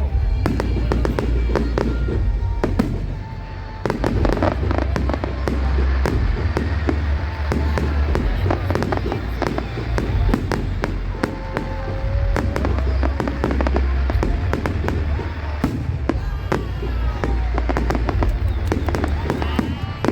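Fireworks display: a dense run of bangs and crackles from bursting shells, with music playing underneath.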